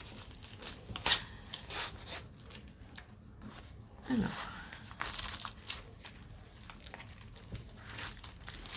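Packaging being handled: a pouch crinkling and rustling with a few sharp crackles as a diamond painting kit is pulled out of it.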